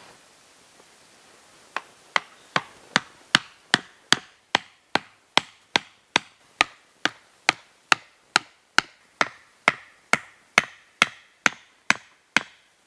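A hatchet pounding wooden stakes into the ground at the ends of a log-frame cot: a steady run of sharp wooden knocks, about two and a half a second, starting about two seconds in.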